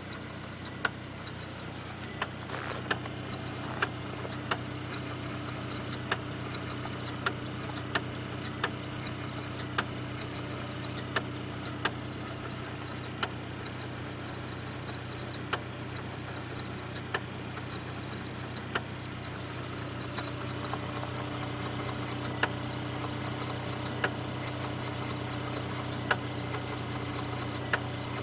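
Car engine idling while its accessory drive belt squeals from the −10 °C cold: a high-pitched whistle in rapid chirps, broken up at first and almost continuous toward the end. A light tick comes about once a second.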